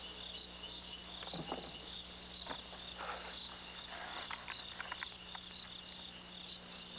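Night chorus of crickets, a steady high pulsing trill, with a few soft scrapes and knocks scattered through the first five seconds.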